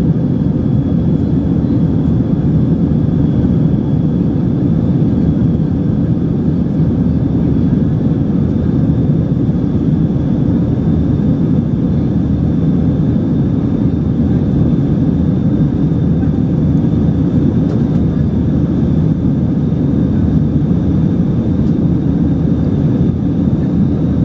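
Steady jet airliner cabin noise in flight: engine and airflow noise heard from inside the passenger cabin, with a faint steady high whine above it.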